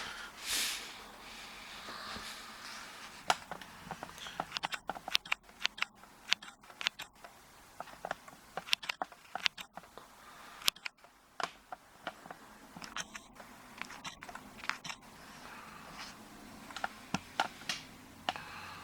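Hands working small plastic model packaging open: a run of irregular sharp clicks and crinkles of plastic being handled.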